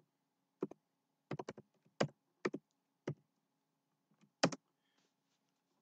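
Keys tapped on a computer keyboard: about eight sharp clicks at uneven spacing, some in quick runs, over a faint steady hum.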